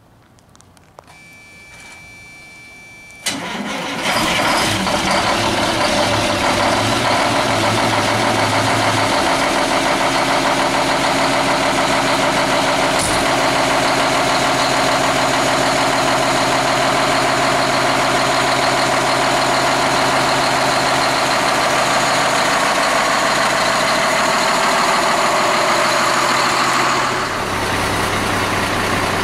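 Diesel engine of a CCC McNeilus rear-loader garbage truck cranking for a couple of seconds, then catching about three seconds in and running loudly and steadily. The level drops a little near the end.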